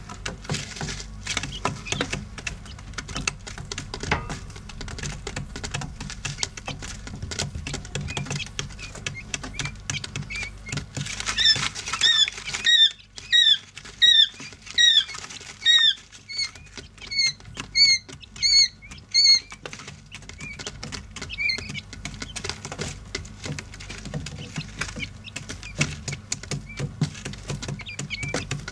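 Quail chicks pecking and scratching in gritty bedding and feed, a steady patter of small clicks with an occasional faint peep. Near the middle comes a run of about a dozen loud chick peeps over some eight seconds, each a short note that rises and falls.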